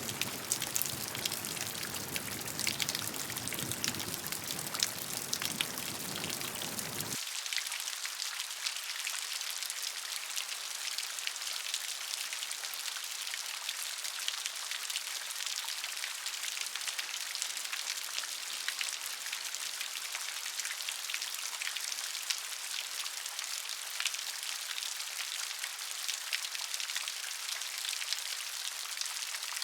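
Steady rain, a dense pattering of many drops. About seven seconds in, the sound switches abruptly to a thinner, hissier rain with the low rumble gone.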